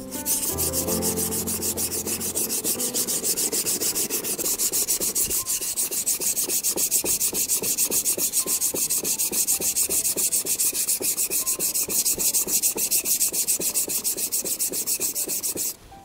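Warikomi santoku kitchen knife ground back and forth on a wet coarse whetstone in fast, even scraping strokes, thinning the blade behind the edge. The strokes stop suddenly near the end.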